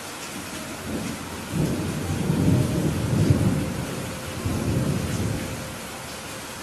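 Thunder rumbling over steady heavy rain: a low rumble builds about a second in, swells twice and fades out near the end, while the rain hiss carries on evenly.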